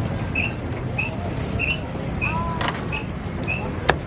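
Repeated short, high squeaks, about two a second and unevenly spaced, over a steady low rumble of street traffic, with a couple of sharp clicks near the end.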